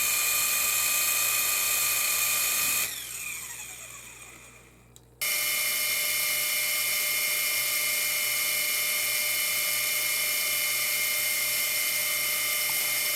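Syma W25 toy helicopter's electric motors and rotors spinning during a break-in run, a steady whine like a vacuum cleaner. About three seconds in it winds down, falling in pitch, then about five seconds in it starts again abruptly at full speed and runs steadily.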